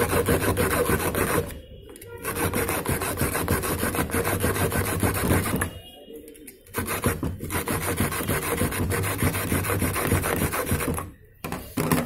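Hacksaw cutting through a rusted steel screw with quick back-and-forth strokes, in three runs broken by short pauses about 2 s and 6 s in and near the end. The screw has rusted solid and has to be sawn off to open the washing machine's panel.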